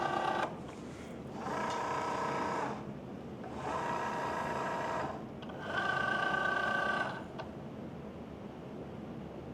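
Cricut Joy Xtra cutting machine's feed motor whirring in four pulses about a second long each, with short pauses between, as it draws in and loads the sheet of material.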